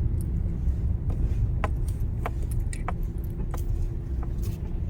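Car driving slowly, heard from inside the cabin: a steady low engine and road rumble with a faint steady hum, and several light clicks and rattles spread through it.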